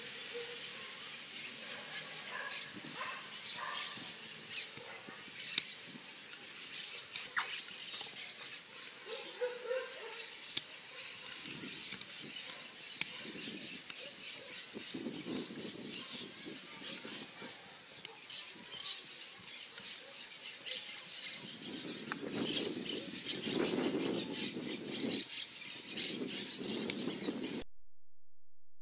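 Outdoor ambience of many birds chirping and calling continuously, with low rumbling noise that swells in the last few seconds before the sound cuts off abruptly.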